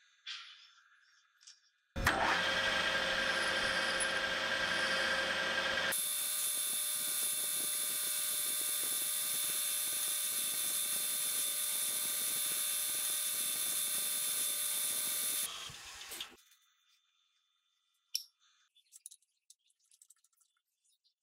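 Metal lathe running and turning a steel rod with its cutting tool: a steady machine whine with several held tones starts sharply about two seconds in, turns brighter and hissier about four seconds later, and dies away after about fourteen seconds. Faint clicks and light metal rattles of parts being handled before and after.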